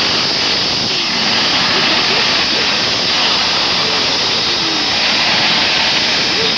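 Steam locomotive pulling its coaches out of the station, with steam hissing steadily from its open cylinder drain cocks.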